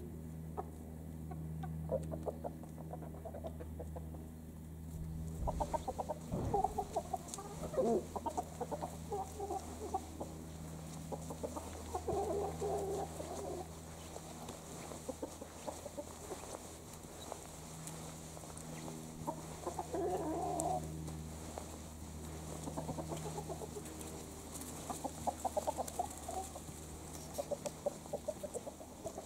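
Free-range chickens clucking in several short bouts of quick, pulsed calls, over a steady low hum.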